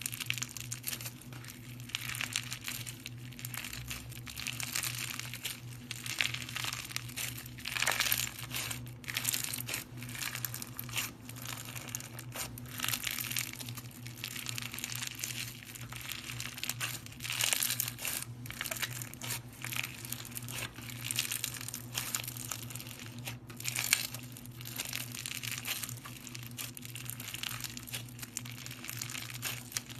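Slime being squeezed and worked by hand, giving dense crackling and popping that swells and fades every second or two. A steady low hum runs underneath.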